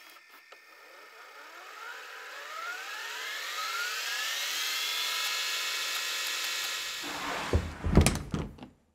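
Logo-sting sound effect: a riser of many tones climbing together, swelling over about six seconds. It gives way to a few deep impact hits near the end, then cuts off.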